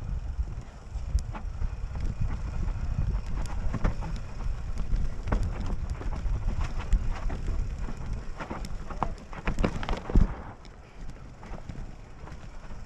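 Mountain bike rolling down a rocky dirt trail: tyres crunching over rock and the bike rattling with sharp knocks of chain and frame, over a steady low rumble. A burst of hard knocks comes about ten seconds in, after which it quietens.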